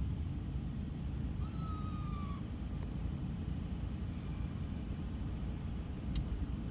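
Steady low rumble of an idling vehicle engine, with a faint thin whistle about one and a half seconds in.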